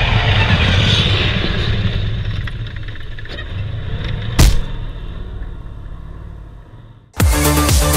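A tank's engine and tracks running as it passes overhead and drives away, the noise fading over several seconds. There is one sharp, loud thump about four seconds in. The sound cuts off suddenly near the end and music starts.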